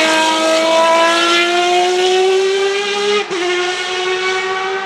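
Ferrari 333 SP's 4.0-litre V12 racing engine accelerating hard, its note climbing steadily in pitch. About three seconds in there is a brief dip in pitch and loudness, a gear change, before the engine pulls on.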